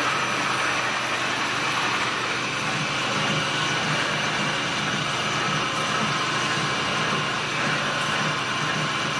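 CNC drilling machine running steadily: a continuous machine noise with a faint high whine over a low hum, unchanging throughout.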